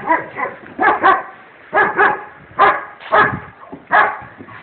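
A dog barking repeatedly, about six short barks spaced under a second apart.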